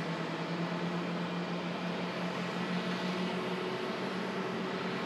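Airbus A320-200 airliner's jet engines running at low power as it rolls along the runway after landing: a steady rushing noise with a steady hum underneath.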